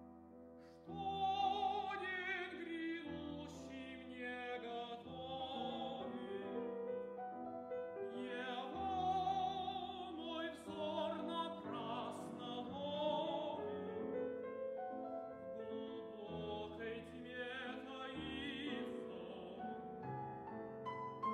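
Operatic tenor singing an aria with piano accompaniment. The piano plays alone for about a second, then the voice enters with a wide vibrato over the piano.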